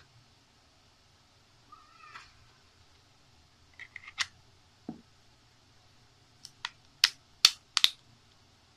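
Plastic back cover of a Samsung Galaxy J5 being pressed onto the phone body, its clips snapping into place with a few light clicks mid-way and a quick run of sharp, louder clicks near the end.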